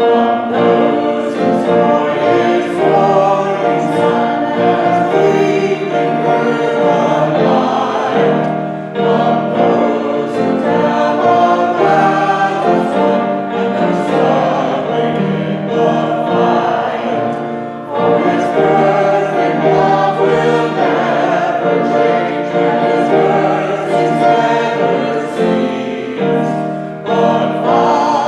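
Group of voices singing a worship song together, with accompaniment.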